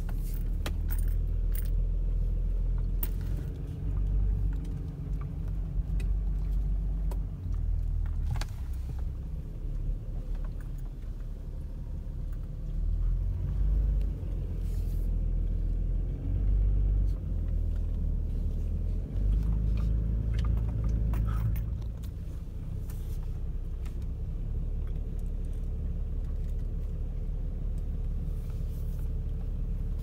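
Car driving along a rutted dirt track, heard from inside the cabin: an uneven low rumble with scattered rattles and clicks as it goes over the bumps.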